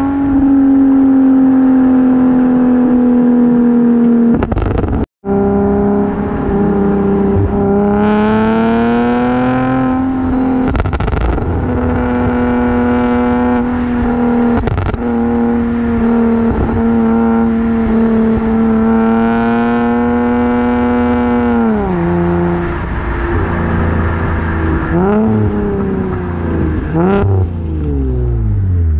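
Infiniti G37's 3.7-litre V6 through an aftermarket single-exit exhaust, driven hard. The engine note holds high and steady for long stretches, dropping and climbing again several times as it shifts and lifts off, with a few short sharp cracks.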